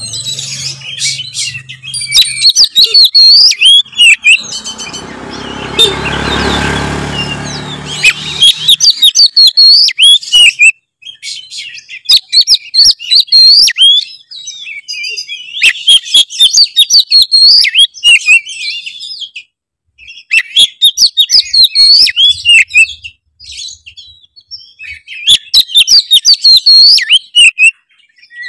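Oriental magpie-robin (kacer) singing loud, rapid, varied high whistled phrases in bursts with short pauses between them. About five seconds in, a rushing noise lasting about four seconds lies under the song.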